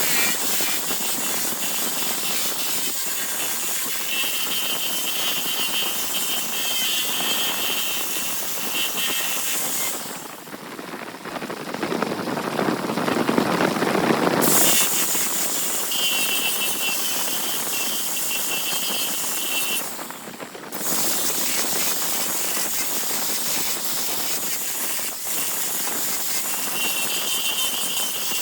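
A tool working spinning wood on a large wood lathe, with a steady hissing scrape and a whine that comes and goes. The hiss breaks off twice, about ten seconds in and again about twenty seconds in, while the lower rushing of the machine carries on.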